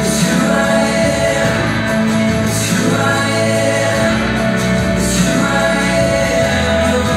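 Christian worship music: sustained held chords with singing.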